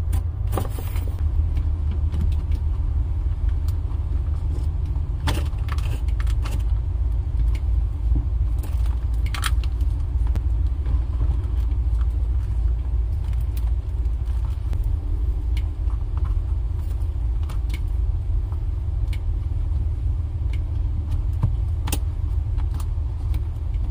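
A steady low rumble with a few faint clicks and scrapes, as a tape-wrapped transducer cable is pushed up through a hole in a boat compartment and rubs against its edges.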